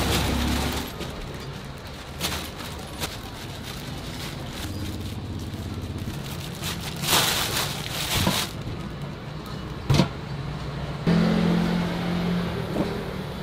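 Plastic bags of rice rustling as they are handled on a counter, with a sharp knock about ten seconds in and a large aluminium pot lid being lifted near the end. Steady road-traffic noise runs underneath.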